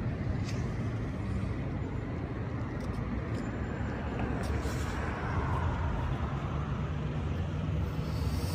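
A freight train of tank cars rolling along the track: a steady low rumble of wheels on rail, with a few faint clicks.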